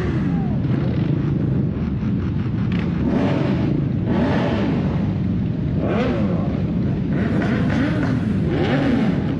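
Motorcycle engine running and revving, its pitch rising and falling again and again over a steady low rumble of road noise.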